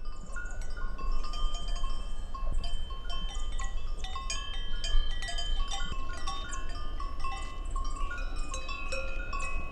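Cowbells on a herd of cows, many bells at different pitches clanking and ringing irregularly and overlapping, over a steady low rumble.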